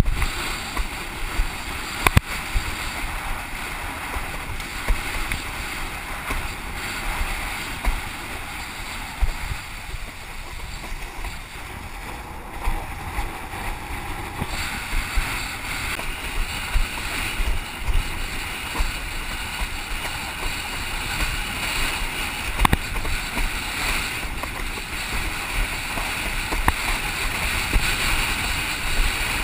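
Strong wind buffeting the microphone of a camera mounted on a windsurfing rig, with water rushing and splashing under the board as it planes over choppy waves. A few sharp knocks stand out, the loudest about two seconds in.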